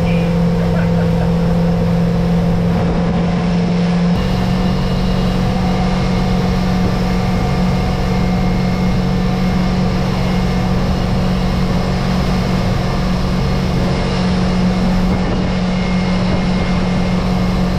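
Motorboat engine running steadily under way while towing a rider, with rushing water and wind from the wake. The engine note shifts slightly about four seconds in, then holds.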